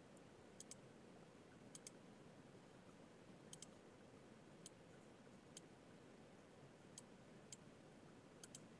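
Faint computer mouse clicks, about one a second and some in quick pairs, over near silence.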